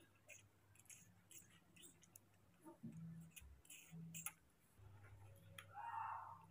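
Near silence with faint small wet clicks as a baby monkey eats milk porridge off a spoon, and a brief faint squeak near the end.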